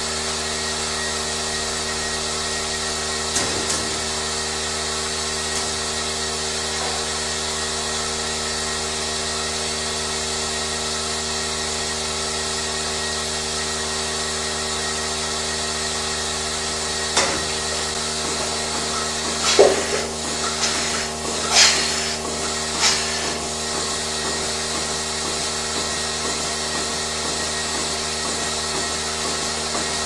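Milking-parlour machinery running steadily: the milking machine's vacuum system hums with a steady whine. A few sharp metal clanks and knocks come together past the middle, with a single small one early.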